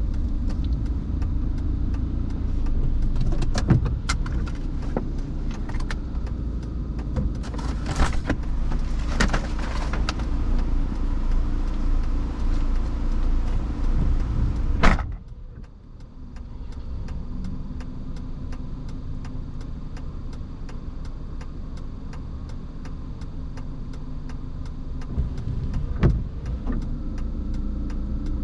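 Car driving in the rain, heard from inside: steady low road and engine noise with scattered sharp clicks and knocks. About halfway through a sharp click comes and the noise drops suddenly to a quieter, steady hum, with one more knock near the end.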